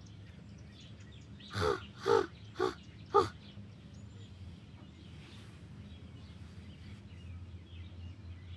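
A person imitating a crow: four short, harsh caws in quick succession, about half a second apart, over a low steady background hum.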